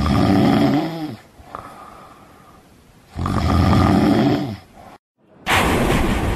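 A person snoring: two long, rattly snores about three seconds apart. A whoosh starts near the end.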